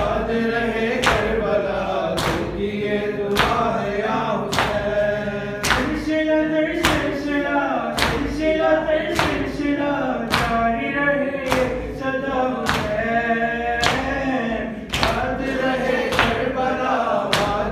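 Men chanting a Shia nauha lament, led by one male voice on a microphone, with rhythmic matam chest-beating: open-handed strikes on the chest at a steady pace of about one a second.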